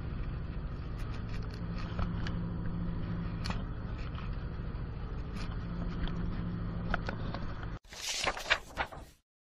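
Boat engine running with a steady low drone, with scattered light clicks and knocks on deck. About eight seconds in it cuts off suddenly, and a short burst of scratchy noise follows before silence.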